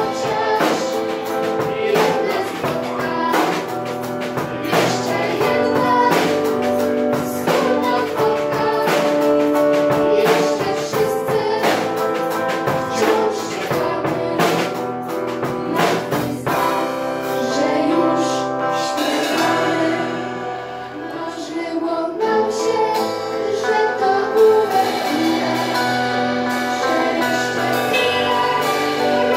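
Live acoustic band playing a song: strummed acoustic guitars and an accordion accompanying young girls singing together. The music eases off briefly about two thirds of the way through, then picks up again.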